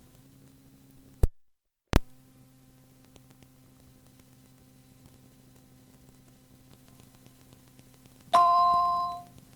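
Faint steady tape hum and hiss. About a second in, a sharp click is followed by a moment of dead silence and another click. Near the end comes a bright electronic cueing chime, two tones sounding together and fading over about a second, which marks the start of the next pre-recorded message.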